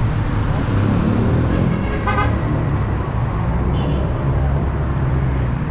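Steady rumble of busy city street traffic, with a short car horn beep about two seconds in.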